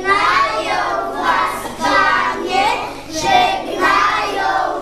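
A group of young children singing a song together in chorus, in short phrases of about a second each.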